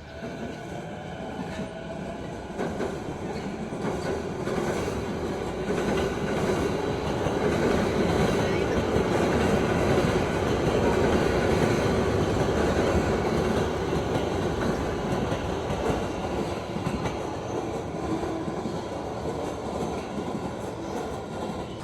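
A train running on rails: a steady rumble and rattle that builds over the first several seconds, then eases slightly toward the end.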